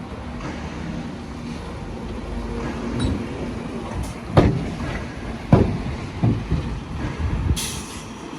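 Diesel engine of heavy earthmoving machinery running steadily, with three loud knocks about halfway through and a short hiss near the end.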